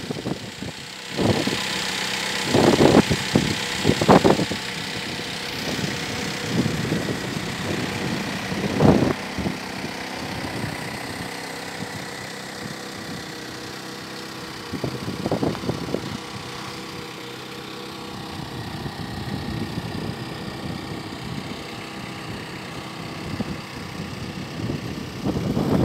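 An engine idling steadily, with a few louder low gusts of wind buffeting the microphone.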